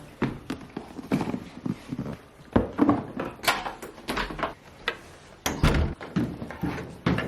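Irregular knocks and thumps, a dozen or so, from objects being handled or set down, the heaviest about two and a half seconds in and again a little past five seconds.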